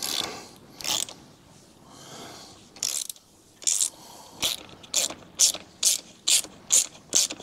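Hand ratchet with a 10 mm socket undoing a bolt, its pawl clicking on each back-stroke. It makes a few slow strokes, then quicker, even strokes about two a second in the second half.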